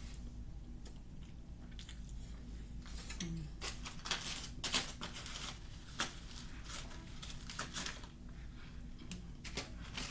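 Crunching and chewing of baked cornstarch close to the microphone: a string of irregular, sharp crunches.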